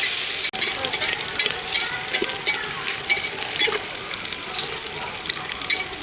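Finely chopped onion sizzling as it fries in hot ghee in a pressure cooker, with frequent small scrapes and clicks of a spoon stirring it, on its way to browning. The sound breaks off for an instant about half a second in.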